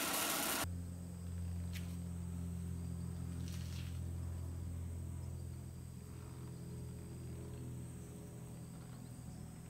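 An oxy-fuel torch flame hissing, cut off abruptly under a second in; then a steady low hum with a couple of faint clicks.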